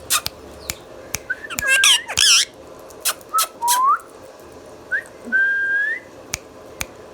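Indian ringneck parakeet calling: many short sharp chirps, a loud warbling squawk about two seconds in, and several rising whistles in the second half.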